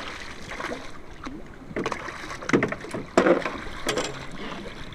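Hooked bluefish thrashing at the surface right beside a boat, water splashing and slapping against the hull, with several sudden louder splashes in the middle, the loudest a little past three seconds in.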